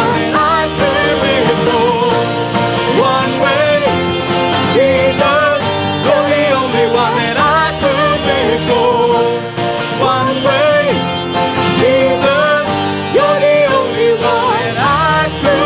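Worship song: a singing voice over band accompaniment with guitar.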